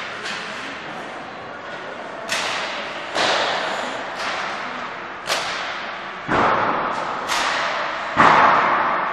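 Hockey pucks and sticks striking the boards and ice, about six sharp bangs that each ring on in a long arena echo, the loudest near the end.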